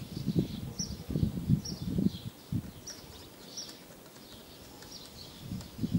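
Small birds chirping in short high calls, repeating about once a second. Low thumps and rustles come in the first two and a half seconds, then fade.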